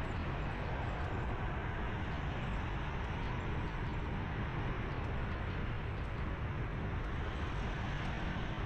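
Steady road and traffic noise from a vehicle moving along a busy city street, mostly a low rumble with an even hiss above it.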